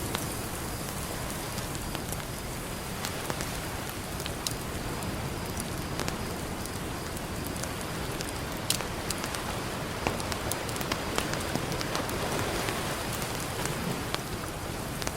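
Campfire crackling, with sharp irregular pops and snaps, over a steady wash of ocean surf that swells slightly near the end.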